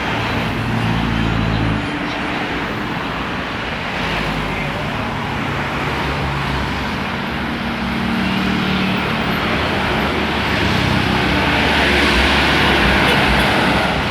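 Roadside traffic, with the engines of large vehicles, buses among them, passing by in a steady rumble. It grows louder near the end as one comes close.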